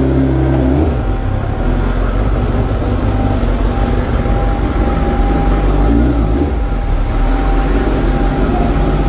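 A 1000 cc litre-class superbike's engine running at low revs as the bike rolls slowly. The note is a steady low drone that shifts slightly now and then, with a thin constant whine above it.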